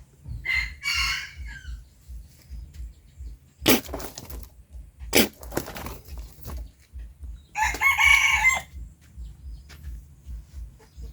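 A bird calls twice, each call about a second long, with two sharp knocks between the calls and a low pulsing underneath.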